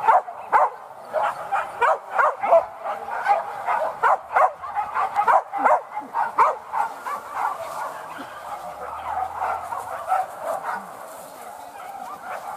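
A pack of hunting dogs barking and yelping, with many short, overlapping calls. They come thick and fast at first and thin out in the second half.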